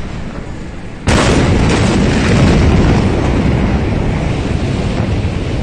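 The massive explosion at the port of Beirut reaching the microphone about a second in: a sudden loud blast that carries on as a long, loud, steady roar.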